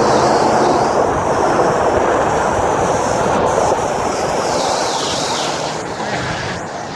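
Loud rushing and splashing of flood water thrown up by a 2005 Ram 2500 pickup's front tyre as it ploughs through deep standing water, with the engine faintly under it at first. The spray eases off over the last couple of seconds as the truck comes out of the water.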